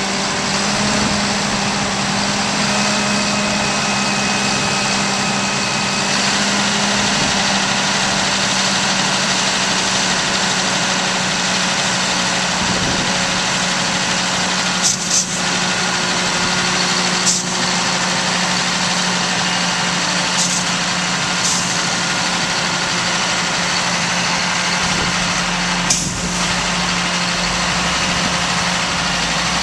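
Heavy diesel engines running steadily: a John Deere 7930 tractor and a medium-duty box truck. A few short sharp clicks come through in the second half.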